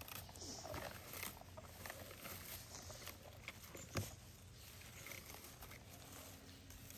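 Rustling and light clicking of low wild blueberry bushes being combed with a berry-picking scoop, with one sharp click about four seconds in.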